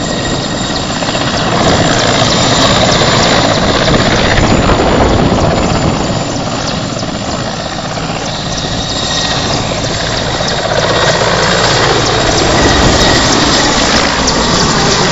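Helicopter running close by: a loud, dense rotor and engine noise that eases a little midway and swells again near the end.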